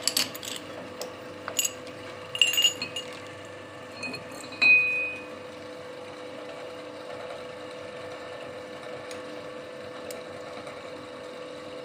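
Metal clinks and taps as a cast-iron part is loosened from a lathe's three-jaw chuck with a chuck key, with one short ringing clink between four and five seconds in, over a steady machine hum.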